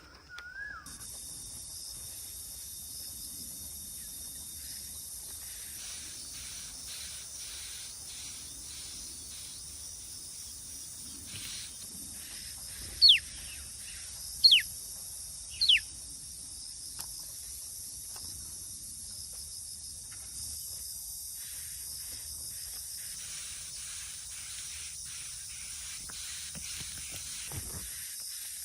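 Bird calling: three sharp, short calls, each sliding quickly down in pitch, about a second and a half apart, over a steady high hiss.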